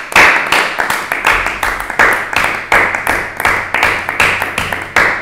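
A small group of people clapping together in steady applause, about three to four claps a second.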